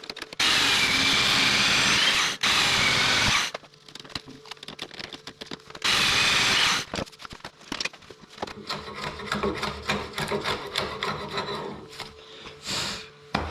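A power tool cutting into oak timber in two bursts, the first about three seconds long and the second about one second, followed by scattered light knocks and clicks.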